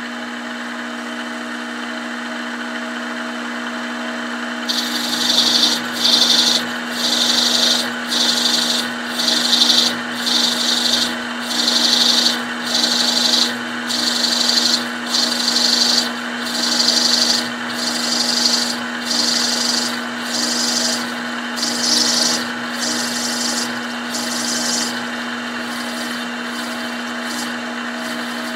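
Milling machine motor running steadily while a 7/16-inch two-flute end mill counterbores a clamp button. About five seconds in, the cut starts as a rhythmic rasp repeating a little more than once a second. It dies away near the end, leaving only the motor.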